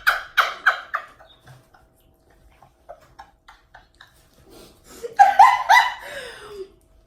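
People laughing: a quick run of laughs trailing off in the first second, then a louder burst of laughter about five seconds in, falling in pitch.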